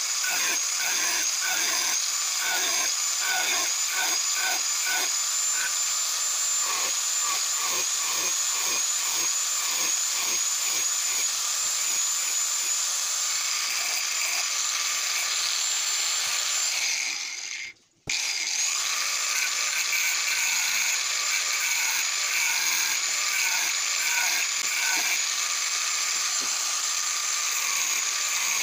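Angle grinder running with a steady high whine as its disc grinds into a steel machete blade; in the first several seconds the grinding pulses about twice a second. About seventeen seconds in, the sound dies away briefly, then the grinder is running and grinding again.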